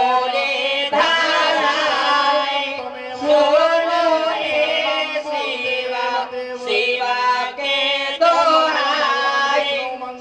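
Amplified Bhojpuri folk singing: a lead voice holds long notes that bend in pitch, with short breaths between phrases, over a steady harmonium accompaniment.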